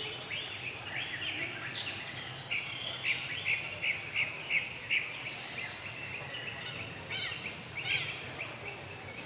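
High chirping calls, many short notes and quick falling sweeps repeating over a steady background hiss, with two sharper, louder calls near the end.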